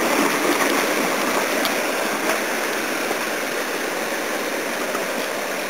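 Creek water rushing over and between boulders in small whitewater cascades: a steady rushing noise.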